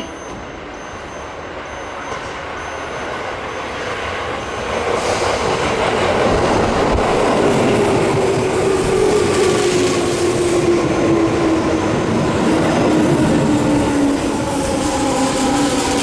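Tobu 9000 series armature-chopper electric train pulling into the platform and braking past the camera. Its wheels rumble, and a whine falls slowly in pitch as it slows. The sound grows louder about five seconds in as the cars reach the microphone.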